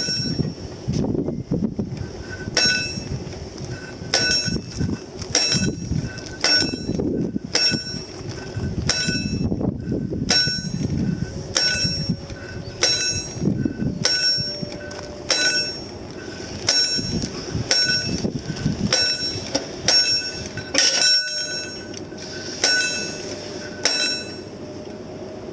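Warning bell on a mechanically operated level-crossing barrier, ringing in even strikes about three every two seconds while the booms lower, stopping near the end once they are down. An uneven low rumble runs underneath.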